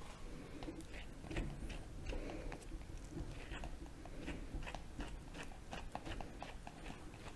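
Flexible slicker brush (Flexkarda) raking through a maltipoo's fluffy coat in short brushing strokes, one after another in quick succession.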